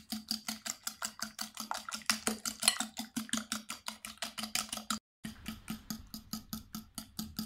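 Metal fork beating eggs in a glass bowl: quick, even clicks of the fork striking the bowl, about seven a second, breaking off for a moment about five seconds in.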